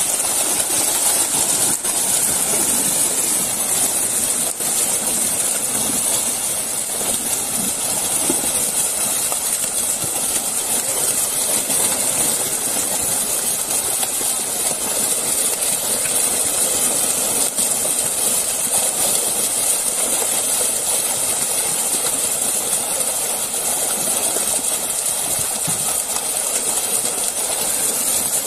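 Loud, steady splashing and churning of water as a dense mass of fish trapped in a drag net thrash at the surface.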